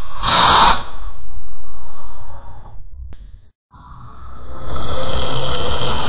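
Chameleon hissing: loud, breathy hisses, the first fading away to a moment of silence about halfway through, then another swelling up louder near the end.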